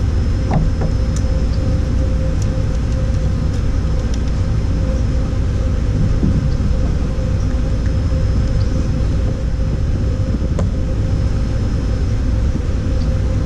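Wind buffeting the microphone of a kayak-mounted action camera: a steady low rumble throughout, with a few faint light clicks.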